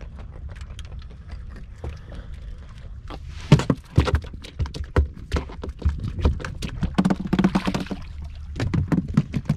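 A freshly caught fish thrashing on a boat's deck: a quick, irregular run of slaps and knocks that starts a few seconds in, over a low steady rumble.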